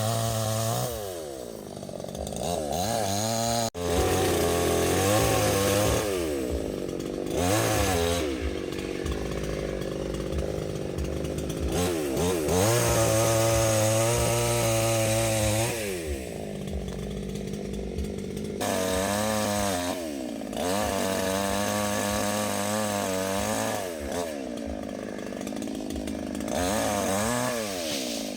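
Chainsaw running hard, its engine pitch rising and falling again and again as the throttle is opened and eased, with longer stretches held at high revs.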